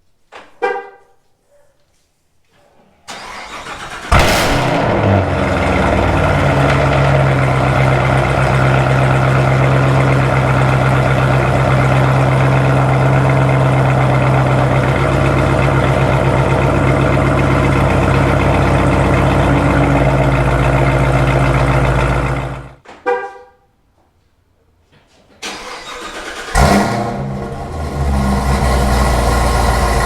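Chevrolet Camaro ZL1's supercharged LT4 V8, straight-piped with both cats deleted and an AWE Track catback, starting up with a sharp flare and settling into a steady idle. It cuts off after about twenty seconds, then starts and idles again near the end.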